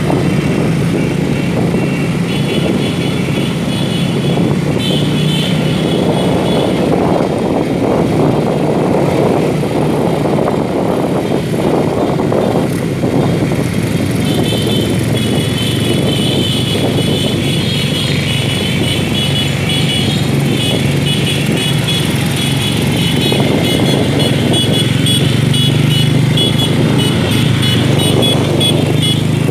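Small motorcycle engines running steadily at cruising speed, heard from a moving motorcycle with wind and road noise. A high, rapidly pulsing buzz comes in a couple of seconds in and again about halfway through.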